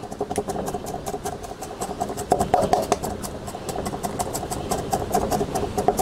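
Wide-bladed knife rapidly chopping diced sweet peppers on a wooden cutting board, a fast even tapping of about eight strikes a second as the pieces are minced really super fine.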